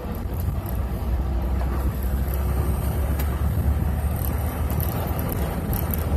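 Bus engine and road noise heard from inside the cab while driving at highway speed: a steady low rumble.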